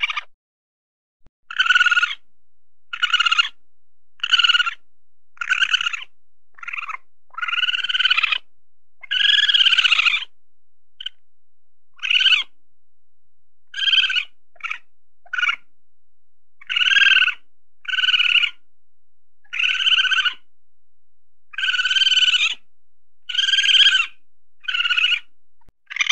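Weasel giving a long series of short, high-pitched calls, each under a second and a few of them longer, coming about once every one to two seconds.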